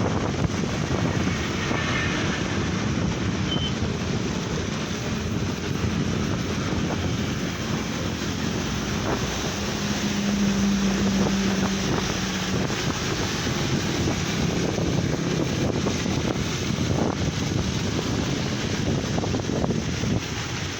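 Wind buffeting the microphone over a steady vehicle rumble, with a faint engine hum coming through briefly in the middle.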